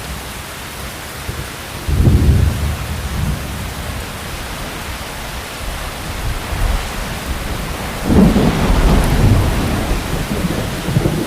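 Heavy rain falling steadily, with two low rumbles of thunder, one starting suddenly about two seconds in and a longer one about eight seconds in, each dying away over a few seconds.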